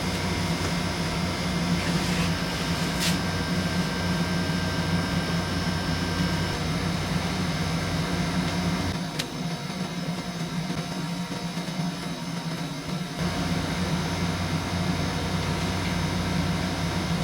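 Steady low mechanical hum with several fixed tones. Its deepest part drops away for about four seconds midway, and there are two faint clicks.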